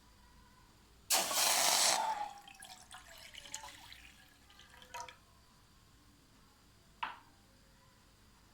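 Water poured or splashed into a cooking pot for about a second, followed by dripping and a few light clicks, with two sharp knocks of kitchenware later on.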